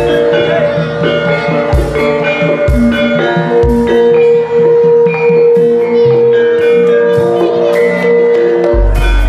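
Gamelan-style music: ringing metal-keyed percussion notes over regular low drum strokes. A low steady hum comes in near the end.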